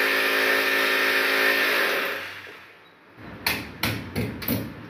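An electric drill runs at a steady whine for about two seconds, then winds down. Four or five sharp knocks follow near the end.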